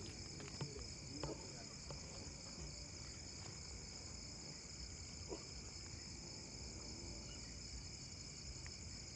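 Night insects, typical of crickets, keeping up a steady, unbroken high-pitched chorus over a faint low rumble.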